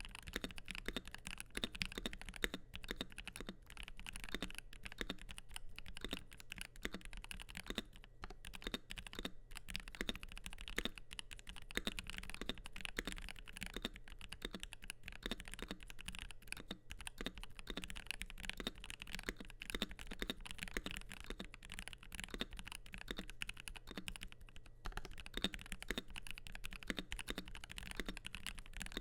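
Continuous fast typing on an ASUS ROG Azoth mechanical keyboard with lubed Gateron Oil King linear switches, PBT double-shot keycaps and an aluminium plate on a silicone gasket mount: a dense, irregular run of muted keystroke clacks with no pause.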